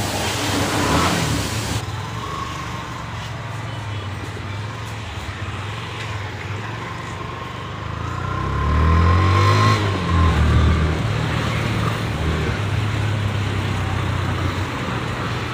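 Single-cylinder engine of a Yamaha FZS V3 motorcycle running on the road, revving up and getting louder about eight seconds in, then settling back to a steady drone.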